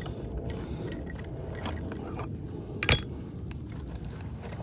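Scattered light clicks and scraping, with one sharp knock about three seconds in, over a steady low rumble.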